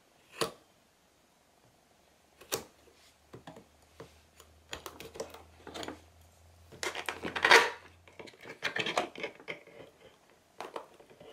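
Knife blade slitting packing tape on a cardboard box: scattered scrapes and taps, with a louder stretch of scraping and tearing about seven seconds in.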